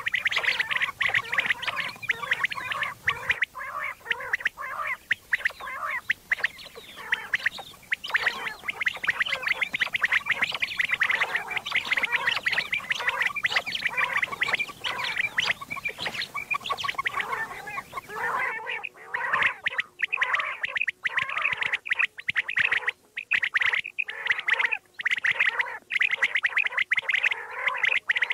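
Common quail calling over and over in rapid, dense strings of short calls that overlap with hardly a break. About eighteen seconds in, the recording's tone changes slightly and the calls continue.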